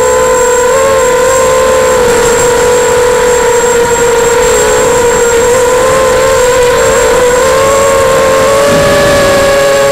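Electric motors and propellers of an FPV drone, heard through its onboard camera: a loud, steady whine whose pitch wavers slightly with the throttle, splitting into two close pitches near the end as the motors run at different speeds.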